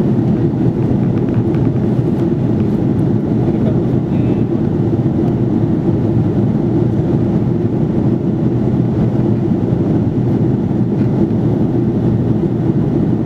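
Airbus A330-300 passenger cabin noise in flight: a steady, even rush of engine and airflow noise heard from a rear-cabin seat.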